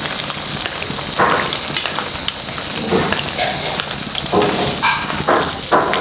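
Pork, tomato and tofu stew simmering in a wok over a wood fire and being stirred with chopsticks: a steady hiss with several short scrapes and knocks. Two steady high tones ring throughout.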